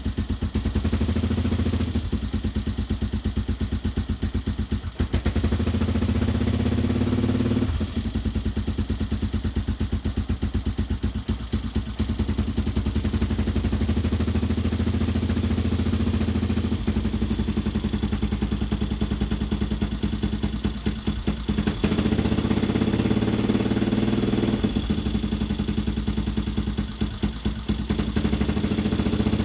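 Rebuilt Suzuki DR650 single-cylinder four-stroke engine running at idle, its speed rising and falling a few times, with a clicking from valves set with a few millimetres too much clearance because they were adjusted on the wrong stroke.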